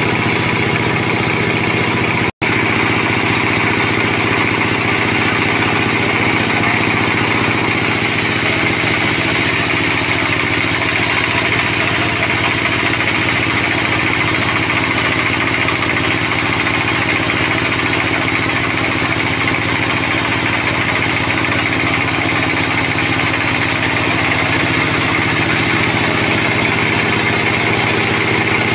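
Sawmill band saw running steadily and cutting through a squared sonokeling (Indian rosewood) beam: a constant machine drone with the hiss of the blade in the wood. The sound cuts out for an instant about two seconds in.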